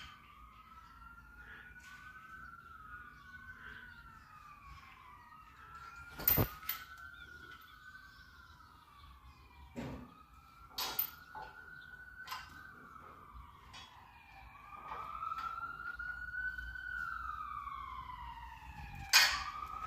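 A siren wailing in a slow, repeated rise and fall of pitch, louder in the last few seconds. A few sharp knocks come over it, the loudest near the end.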